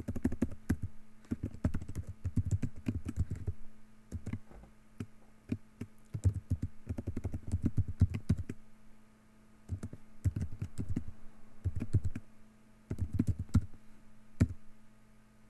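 Computer keyboard typing: bursts of quick keystrokes with short pauses between them, ending on a single keystroke.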